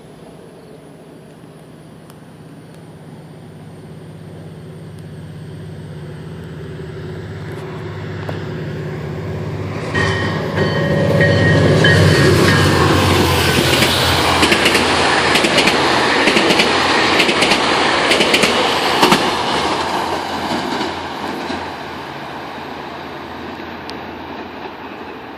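GO Transit diesel-hauled commuter train approaching and passing at speed: the locomotive's engine drone builds for about ten seconds, then a loud rush of wheels clattering over the rails with some high ringing tones, dying down near the end.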